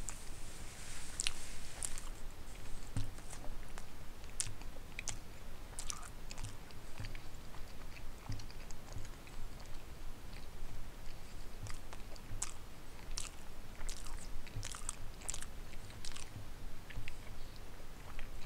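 A person chewing a mouthful of pot roast and vegetables with the mouth closed: soft wet clicks and smacks at an irregular pace.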